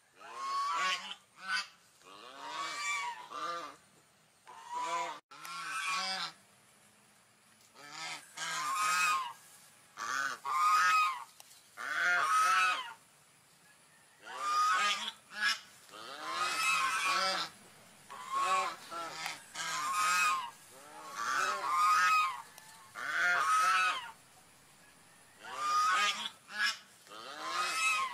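Swans calling: repeated short calls, some single and some in quick runs of two or three, each rising then falling slightly in pitch, with brief pauses between.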